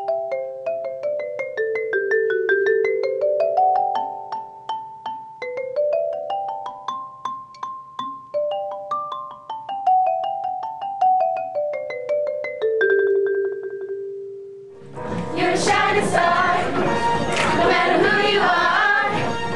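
Xylophone played with mallets: quick runs of single struck notes that climb and fall, ending on one note struck rapidly over and over. About fifteen seconds in, a choir of young students starts singing.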